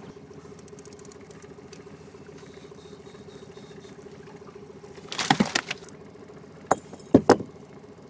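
Boat outboard motor running steadily while a fish is reeled in and landed: a quick run of fine reel clicks in the first second or so, then a loud cluster of splashing, rattling noise about five seconds in and three sharp knocks a little later as the fish comes aboard.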